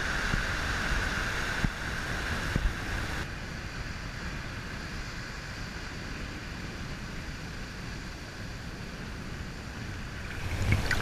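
Wind buffeting the microphone over the hiss of small waves washing onto a sandy beach; the higher surf hiss thins out about three seconds in.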